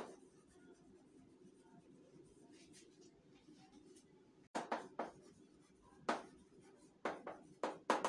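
Chalk writing on a chalkboard: faint for the first few seconds, then a quick run of short, sharp chalk strokes and taps from about halfway through.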